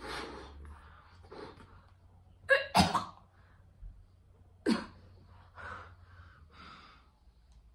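A woman gasping and breathing hard in short sharp bursts, winded from blowing up a large latex balloon by mouth. The loudest gasps come about two and a half seconds in and again near five seconds.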